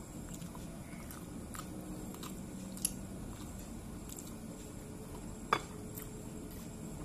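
Eating rice by hand from a plate: fingers tapping and scraping on the plate and soft chewing, with two sharper clicks about three and five and a half seconds in, over a steady low background hum.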